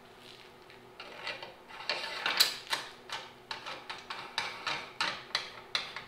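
The threaded table-lock handle of a Mastercraft 10-inch sliding compound mitre saw being slid into the front of the turntable and turned in, giving a run of short clicking scrapes, a few a second, from about a second in.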